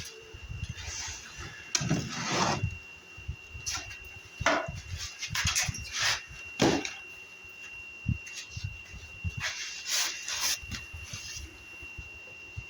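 Wooden beehive equipment being handled: irregular scrapes, rubs and knocks of wood on wood, with a thin steady high whine behind them.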